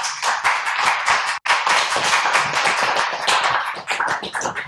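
A small audience applauding: a dense patter of hand claps that cuts out for an instant about a second and a half in and thins out near the end.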